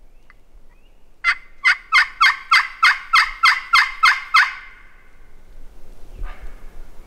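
Hand-worked friction turkey call run as a loud series of about eleven hen yelps, about three a second, meant to draw an answer from distant gobblers.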